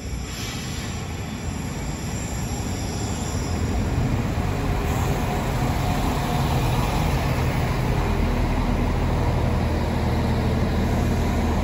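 Irish Rail InterCity diesel multiple unit pulling into the platform, with a brake squeal about the first second, then the low hum of its diesel engines growing louder as the carriages draw alongside.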